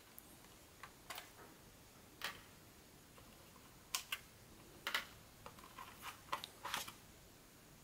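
Light, scattered clicks and taps from a WLToys 144001 RC buggy's body shell and chassis being handled and turned over, with a quick run of them about two thirds of the way through.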